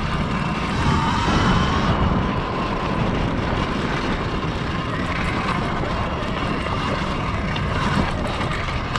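Segway X260 electric dirt bike riding off road: a steady electric motor whine that climbs in pitch about a second in and then holds, over rumbling wind and trail noise on the microphone.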